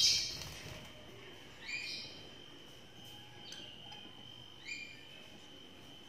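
Lovebird chick giving short chirps, two plain ones about three seconds apart and a fainter one between, over a steady high-pitched tone. A brief noise fades out right at the start.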